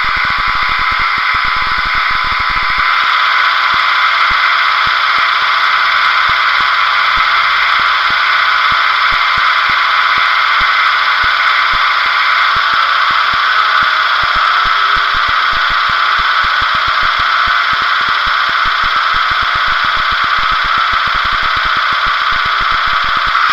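Recorded HST Class 43 power car diesel engine sound, played by an OO-gauge model's ESU LokSound 4.0 sound decoder through a small speaker, running steadily at idle with a high whine over it.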